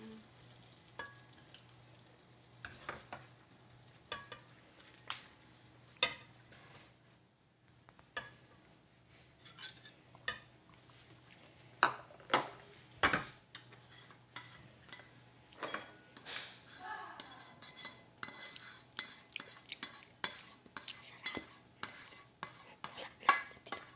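A spatula knocking and scraping against a pan and a ceramic serving bowl as chicken wings in sauce are stirred and dished up. Scattered clinks and taps come much faster in the last several seconds, over a faint steady low hum.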